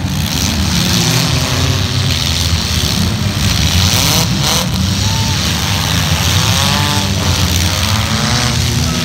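Several demolition derby cars' engines running loudly together, revving up and down as the cars push and maneuver on the dirt track.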